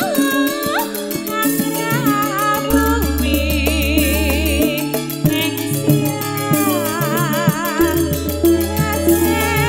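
Live Javanese campursari (Sragenan) music: a woman sings with a strong wavering vibrato over a band with a steady drum beat and a deep bass note sounding in long stretches.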